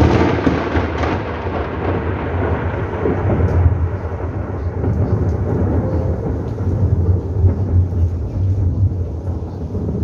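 Thunder from a close lightning strike: loud right at the start, then a rolling rumble that fades over about four seconds, with a deep low rumble carrying on after.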